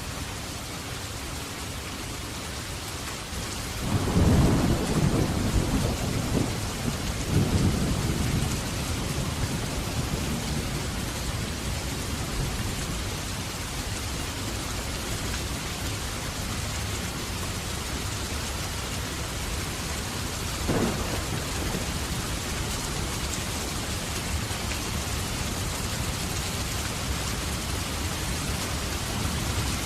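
Steady heavy rain with thunder: a low rumble of thunder rolls in about four seconds in, swells twice over about five seconds and fades, and a brief sharp crack comes about two-thirds of the way through.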